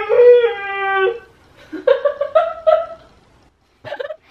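A woman imitating an elephant's trumpet call with her voice: a long, steady-pitched call that ends about a second in, then a second, shorter call. A brief laugh near the end.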